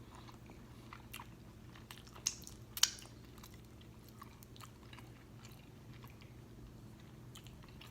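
Close-miked chewing of food, faint, with scattered wet mouth clicks and two sharper smacks about two and three seconds in, over a faint steady low hum.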